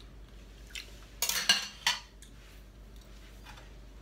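Kitchen utensils and crockery clattering: a short run of sharp clinks and knocks between one and two seconds in.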